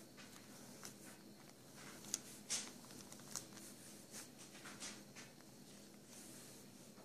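Pen scratching on lined notebook paper in short, irregular drawing strokes, faint, with the loudest strokes about two to two and a half seconds in.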